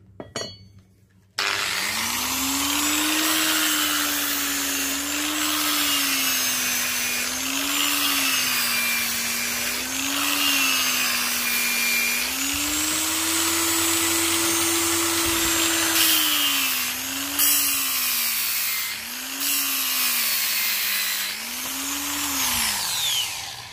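Electric grinder switched on and spinning up, then steel pressed against it again and again in a spark test comparing spring steel with HSS steel. The motor's hum sags in pitch each time the steel bears on it, over a steady grinding hiss. It is switched off near the end and winds down.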